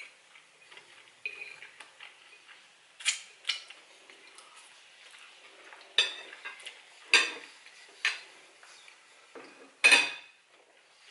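Metal fork clinking and scraping against a white ceramic bowl, about six sharp, separate clinks, with the loudest knock near the end.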